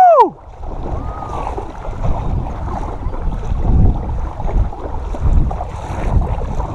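A man's shout of "Woo!" at the very start, then wind buffeting the microphone in uneven low gusts, with water splashing as a largemouth bass is pulled in and lifted from shallow water.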